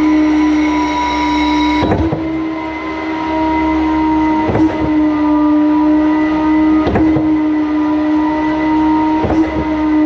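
Putzmeister concrete pump running in forward pump: a steady drone from the pump unit, and the S-tube in the hopper shifting four times, a clunk about every two and a half seconds. The shifts are a touch sluggish, from low accumulator charge pressure (about 50 bar where 90 to 110 bar is wanted).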